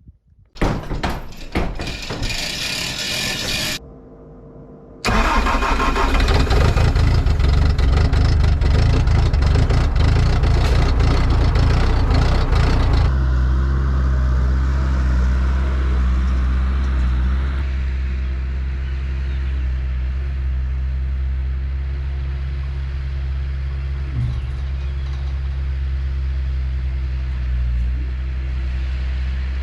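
An engine is cranked and started, running rough and loud for several seconds, then settles about 13 seconds in to a steady low idle.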